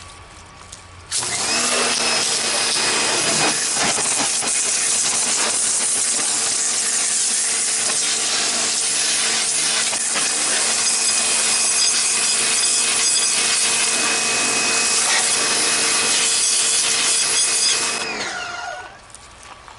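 Topshak TS-HPW4 electric pressure washer spraying through its red fine-stream tip: the motor's whine comes up to speed about a second in over the loud hiss of the high-pressure jet, runs steadily, and winds down near the end.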